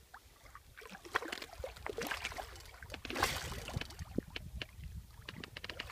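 Water splashing and sloshing as a hooked black drum thrashes at the surface: a run of irregular splashes, the loudest about three seconds in.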